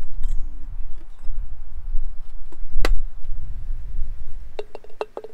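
Low wind rumble on the microphone, with a single sharp click about three seconds in. Near the end come a few quick clinking knocks as whole lemons are dropped into an empty glass teapot.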